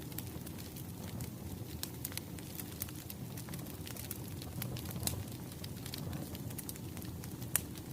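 Wood fire crackling: scattered sharp pops over a steady low rumble, with one louder pop near the end.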